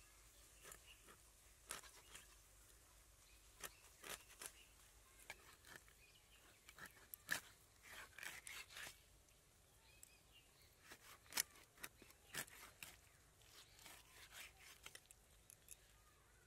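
Catfish being cut on a boti, an upright curved blade fixed to a wooden base: faint, irregular scraping and crunching of flesh and bone against the blade, with a dozen or so sharp clicks.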